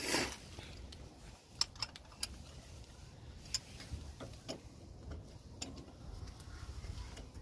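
Scattered light metallic clicks and taps, a second or so apart, from tools and parts being handled while a car's front suspension is taken apart.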